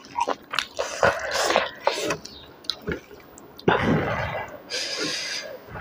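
Close-up eating sounds: wet chewing and lip smacking, with many short, sharp mouth clicks, as rice and beef curry are eaten by hand. A little past halfway comes a longer, noisier stretch of about two seconds, fingers squishing rice and curry on the plate.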